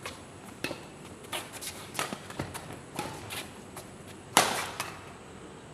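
Badminton rackets striking a shuttlecock during a doubles rally: a string of sharp cracks, the loudest about four and a half seconds in.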